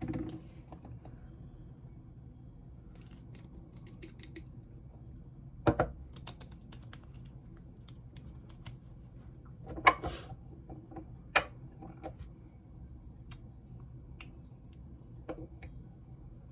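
Scattered light clicks and taps of small objects being handled, with three louder knocks about six, ten and eleven seconds in, over a steady low hum.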